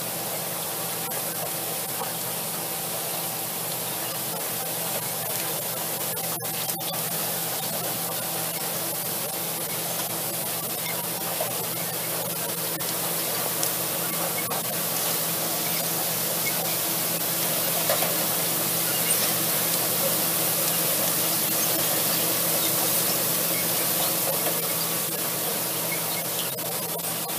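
Tractor engine running steadily as it pulls a peanut digger-inverter through the field, a low hum under a strong, even hiss from the machine working the soil and vines.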